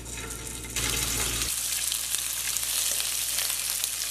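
Pork rib chunks searing in hot oil in a frying pan over high heat: the sizzle jumps up less than a second in as the pieces go in, then runs steadily.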